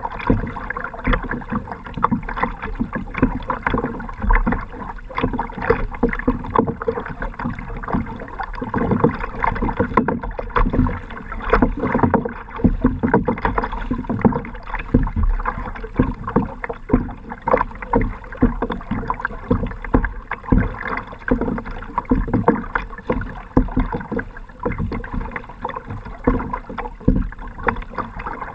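Choppy lake water slapping and splashing against a kayak's hull, a dense, irregular run of splashes with no steady rhythm.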